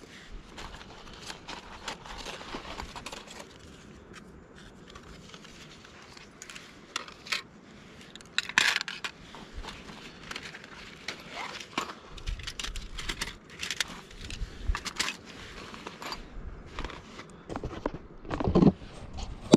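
Camping gear being unpacked and handled: rustling and crinkling of bags and pouches, with irregular clicks and knocks of the cook kit. A louder knock comes near the end.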